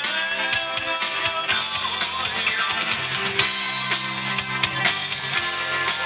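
Live rock band playing: a violin lead with sliding notes over electric guitar, bass guitar and a drum kit.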